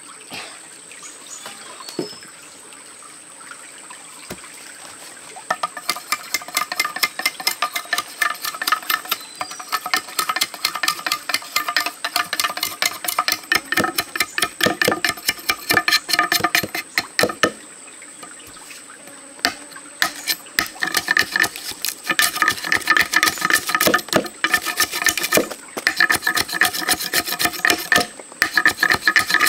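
A large knife blade scraping and shaving the green outer skin off a bamboo pole in quick strokes, several a second, each giving a short woody ring. It starts about five seconds in and pauses briefly about two-thirds of the way through. A stream trickles faintly before the scraping starts.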